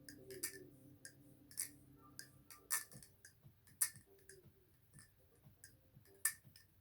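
Thomas Balisong Refault butterfly knife being handled and flipped: irregular sharp metallic clicks of the handles and blade swinging and striking together, a few louder than the rest.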